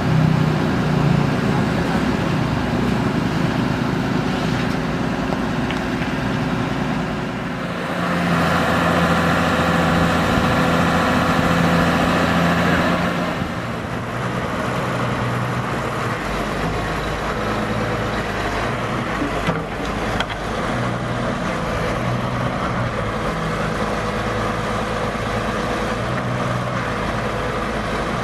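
Heavy diesel engine of earth-moving machinery running steadily. Its tone and loudness shift about a third of the way in and again near the middle.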